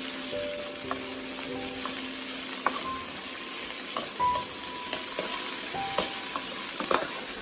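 Cut green beans sizzling in hot oil in a wok, stir-fried over high heat. A metal ladle clinks and scrapes against the wok several times as they are turned.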